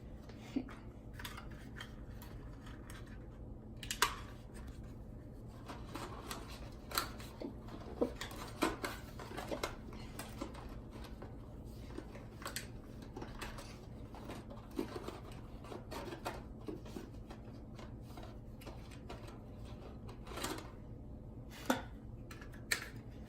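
Small plastic toy figures being handled and fitted into a plastic storage case: irregular light clicks, taps and rubbing.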